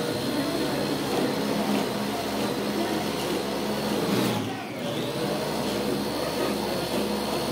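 Small electric food processor (mini chopper) motor running with a steady high whine, chopping pesto ingredients; about four seconds in the motor winds down and stops briefly, then starts and winds back up as the top button is pressed again.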